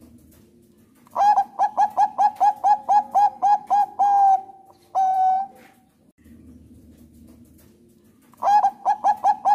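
Zebra dove (Thai-bred perkutut bangkok) singing: a run of about a dozen quick cooing notes, then a single longer held coo about five seconds in. A second run of quick coos starts near the end.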